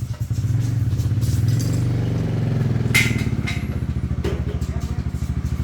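Small motorcycle engine idling, its speed rising slightly then settling, with a couple of sharp clicks about three and four seconds in.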